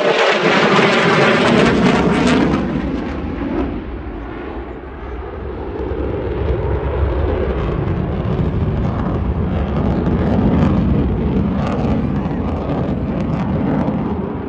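F-35 fighter jet's engine roaring as it makes a fast pass, with the pitch falling as it goes by in the first couple of seconds. The roar eases about four seconds in, then builds again into a steady low rumble as the jet turns.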